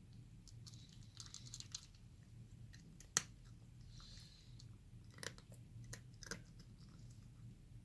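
A cat chewing its food: faint, scattered small crunches and clicks, with one sharper click about three seconds in.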